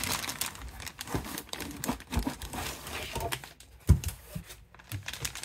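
Clear plastic bag crinkling irregularly as a bagged popcorn bucket is handled and lifted out of a cardboard box, with a single thump about four seconds in.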